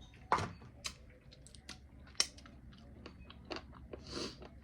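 Close-miked chewing of buffalo chicken wings: a handful of sharp, scattered mouth clicks and smacks, with a short breathy rush about four seconds in.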